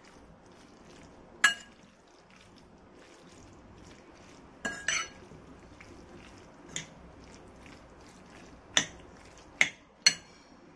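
Metal fork stirring sauce-coated sliced beef in a bowl, with several sharp clinks of the fork against the bowl at irregular intervals, three of them in the last two seconds.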